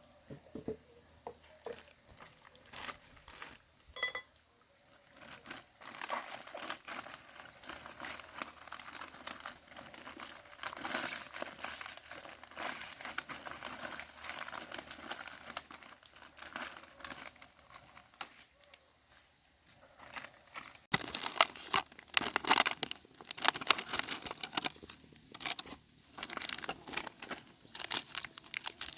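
Dry material being handled: continuous crinkling and rustling with many small crackles. It grows louder with sharp snaps in the last third.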